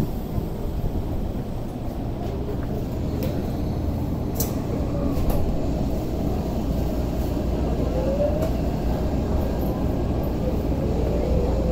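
Tokyo Metro 05 series subway car heard from inside as it pulls out of a station: a steady low rumble of wheels and running gear, with the traction motors' whine rising in pitch near the end as the train speeds up.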